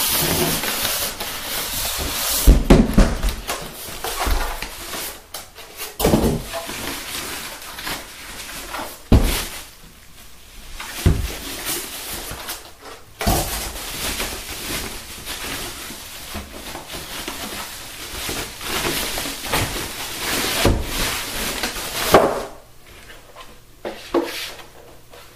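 Cardboard box flaps and styrofoam packing being handled and pulled out of a subwoofer's shipping box: steady rustling and scraping, with several knocks and thumps. The loudest come about two and a half seconds in and again near the end.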